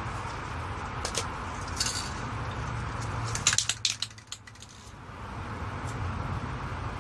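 Light metallic clinks and taps of spray cans being handled, over a steady low hum. A quick cluster of clinks comes about halfway through, after which the background hum drops away for a second or two.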